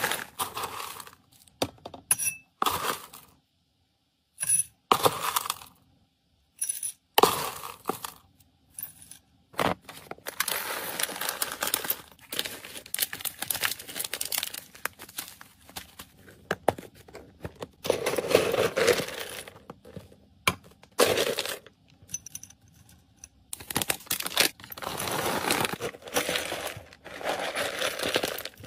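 Dry pet food, a mix of seeds, dried peas and pellets and then round kibble, rattling as it is poured into clear containers and plastic zip bags, with plastic bags crinkling as they are handled and sealed. The first ten seconds hold short rattles with quiet gaps between them; after that come longer spells of pouring and bag rustling.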